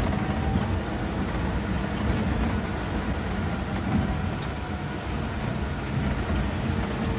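Steady rumble of a vehicle driving along a paved road: engine and tyre noise.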